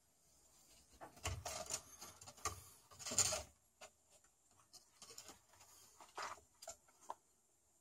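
Kittens scuffling on a wooden floor: scattered light taps and scratches from paws and claws, with a louder stretch of rustling and rubbing about one to three and a half seconds in.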